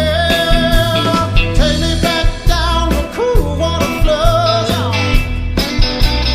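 Rock song with a singer's voice over electric guitar, bass and a steady drum beat.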